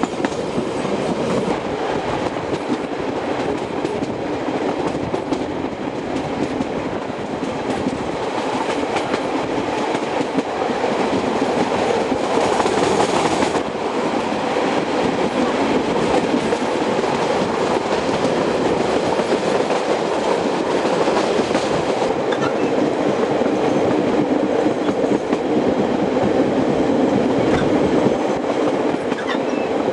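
Passenger train running along the track, heard from inside a carriage: steady running noise of wheels on the rails, with a short louder, hissier rush about twelve seconds in.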